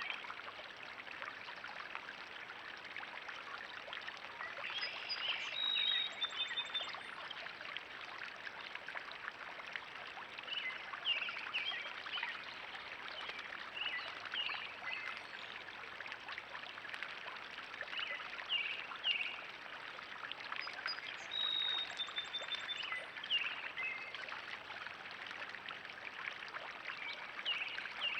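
Pond water trickling steadily, with birds chirping over it; a longer bird phrase comes about five seconds in and the same phrase again about twenty-one seconds in.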